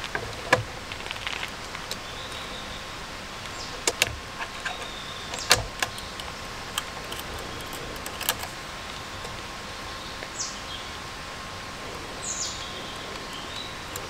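Irregular clicks and knocks of metal camping gear being handled: a flashlight being fitted and tightened onto an articulated magic-arm clamp on a metal camp table, with a carabiner clinking against it.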